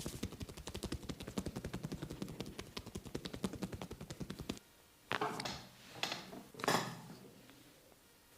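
Head massage sounds: a fast run of sharp cracks from rapid hand strikes, about ten a second for some four and a half seconds, then three brushing rubs about a second apart.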